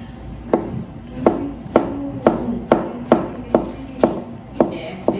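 Kitchen knife slicing a cucumber into rounds on a wooden cutting board. Each cut ends in a sharp knock of the blade on the board, in a steady rhythm of about two a second.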